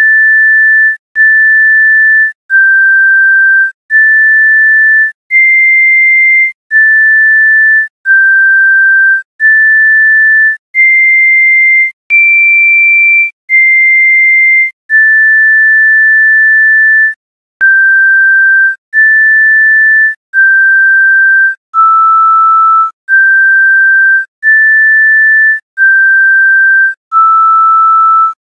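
A slow, high melody played in pure electronic sine-wave tones, one note at a time. Each note is held about a second with short breaks between, stepping up and down, and one longer note comes past the middle.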